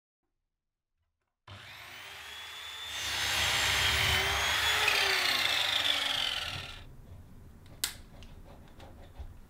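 Electric mitre saw starting up, then cutting through a length of staff bead for about four seconds with a rising and falling whine before it runs down. A single sharp click follows near the end.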